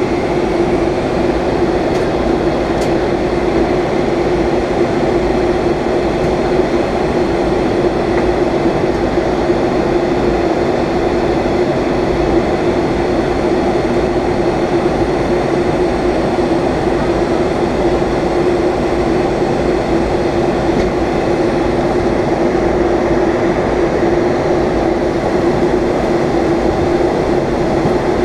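Steady cabin noise inside a Boeing 757-200 airliner in descent: a constant rush of engines and airflow with a steady hum running through it.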